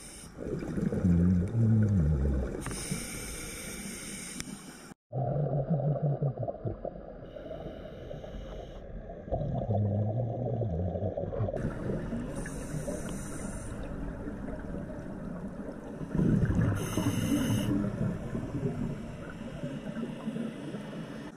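Scuba diver breathing through a regulator, heard underwater: hissing inhalations alternating with low bubbling exhalations, about four breaths, with a brief dropout about five seconds in.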